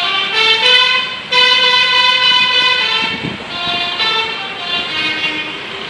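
Bus telolet horn, a set of multi-trumpet air horns fired in sequence, playing a long tune. It runs through quick changing notes, holds one long note from about a second and a half in, then steps through more notes until it stops near the end.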